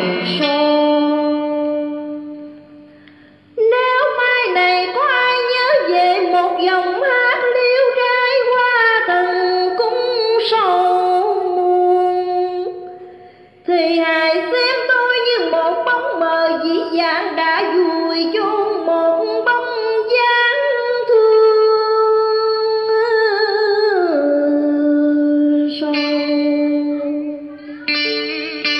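Southern Vietnamese folk-song music: a plucked-string melody with a woman singing along into a microphone. It dies away twice, briefly, and picks up again.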